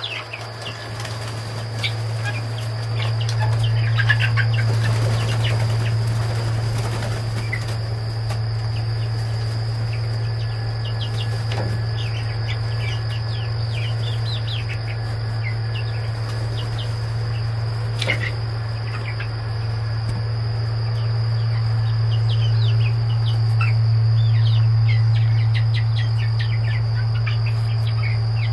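Young chickens, about six weeks old, peeping in many short falling chirps and flapping their wings, over a steady high insect drone. A loud steady low hum runs underneath.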